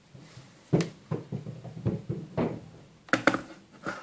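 A run of irregular knocks and scrapes as an electric kettle is handled on its base and its switch is fumbled at, starting about a second in.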